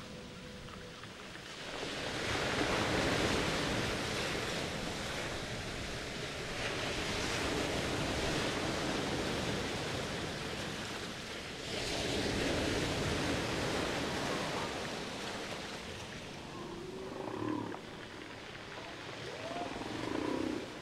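Wind gusting across the microphone: a rushing, rumbling noise that swells and eases several times, with a few faint short tones near the end.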